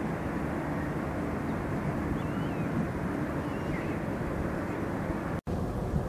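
Steady low outdoor rumble and hiss, with a few faint, wavering bird calls about two to three seconds in. The sound cuts out for an instant near the end.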